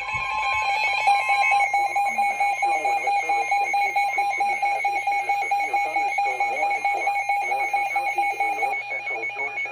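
NOAA Weather Radio warning alert tone: a loud, steady, high-pitched alarm tone that signals a warning broadcast is about to follow. A faint voice runs underneath.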